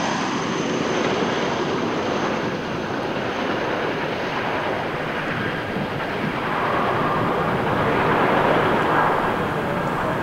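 Boeing CH-47 Chinook tandem-rotor helicopter in flight, its two rotors and twin turboshaft engines making a steady, dense rotor-and-engine noise. A thin high turbine whine fades out over the first few seconds as the helicopter draws away.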